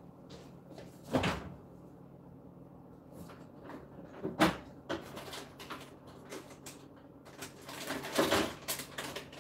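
Kitchen doors being opened and shut: a sharp knock about a second in, another around four and a half seconds in, and a few more near the end, over a faint steady hum.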